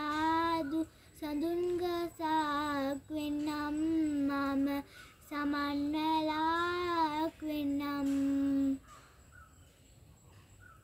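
A young girl singing a Sinhala Buddhist devotional song unaccompanied, in phrases with short breaks for breath. She ends on a long held note about nine seconds in, after which only a faint outdoor background is left.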